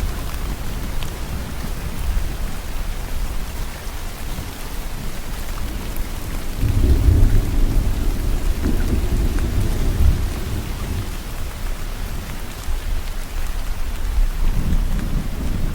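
Steady heavy rain falling, with a long low roll of thunder swelling up about halfway through and another rumble building near the end.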